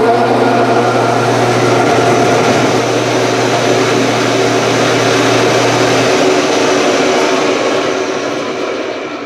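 An electric motor on the benchtop CNC mill, switched on through the controller, running loud and steady with a rushing whir. A low hum drops out about six seconds in, and the sound fades away near the end.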